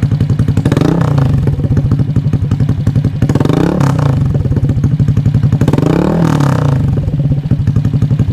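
Honda AirBlade scooter's single-cylinder engine running through an aftermarket SC Project carbon exhaust: a steady, fast-pulsing idle, revved up and let fall back three times.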